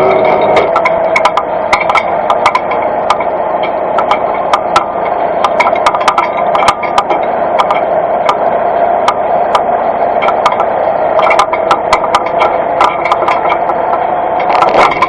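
Fendt Vario tractor running steadily while pulling a hay implement, with many sharp, irregular clicks and rattles from the towed machinery.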